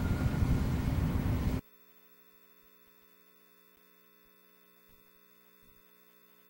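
A loud, noisy hum that cuts off suddenly about a second and a half in, leaving near silence with only a very faint hum.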